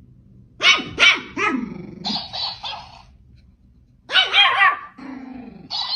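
A dog barking and yowling in two bouts of several calls each, the second bout starting about four seconds in.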